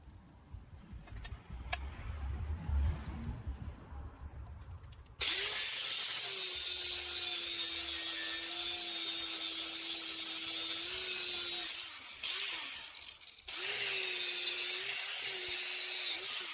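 Angle grinder with a twisted-wire cup brush scrubbing rust off a steel channel: a steady motor whine under a harsh scratching, running about six seconds, pausing briefly, then about three seconds more before stopping near the end. Before the grinder starts, a few seconds of handling knocks on the bench.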